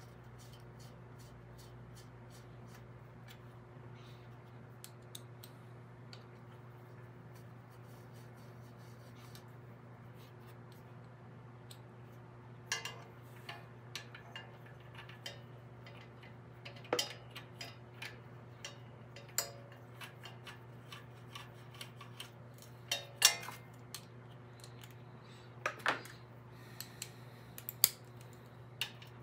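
Small metal hand tools clicking and tapping as they are handled and worked on a small engine's valve cover. Scattered sharp clicks become louder and more spaced out from about halfway through, over a steady low hum.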